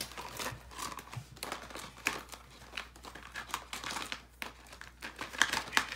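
Clear plastic case of watercolour brush pens being handled and set down on the desk: scattered light clicks and plastic crinkling, a little louder near the end.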